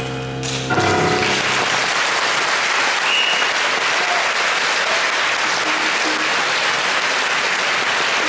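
A jazz band's final chord of violin, guitar, piano, bass and drums rings out and stops, and audience applause breaks out under a second in and goes on steadily.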